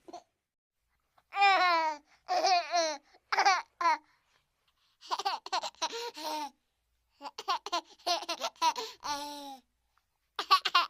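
A baby laughing and babbling in short high-pitched bursts of giggles, each falling in pitch, with complete silences between them; a longer run of laughs about seven to nine and a half seconds in.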